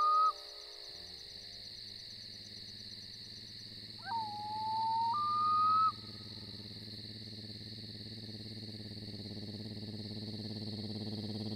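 An owl-like hoot: one drawn-out call about four seconds in, held on one pitch, then stepping up higher before it stops. The tail of a similar call ends right at the start. A steady high hiss runs underneath, and a low hum slowly grows louder toward the end.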